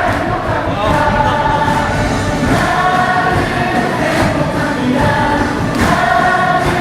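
Korean baseball stadium crowd singing a team cheer song together, with a sharp beat about every second and a half.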